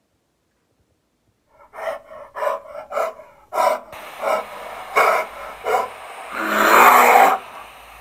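A person making short breathy huffs, about two a second, then a longer, louder growl-like breath near the end.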